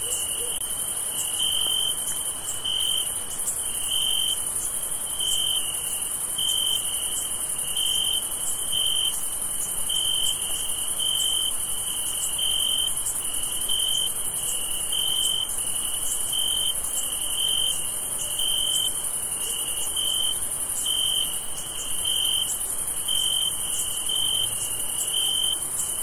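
Crickets chirping at an even pace, a little more than one chirp a second, over a steady high-pitched insect trill: a summer night insect chorus.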